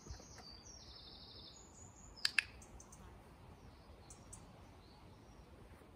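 A songbird sings short warbling phrases in the background, and about two seconds in there is a sharp double click, two clicks a split second apart.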